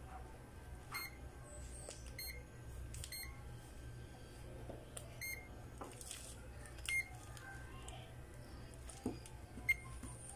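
Short, high electronic beeps from a Zotek ZT102 digital multimeter as its rotary dial and buttons are worked, about five beeps at uneven intervals.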